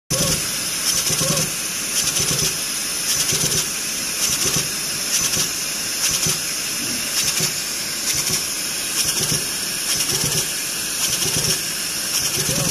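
Richpeace CNC leather perforating machine at work, its needle head punching patterns of small holes in leather. Bursts of rapid punching strokes come about once a second over a steady high hiss from the machine.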